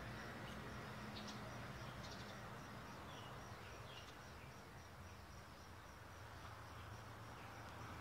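Faint outdoor ambience: a steady low hum with scattered short, high chirps.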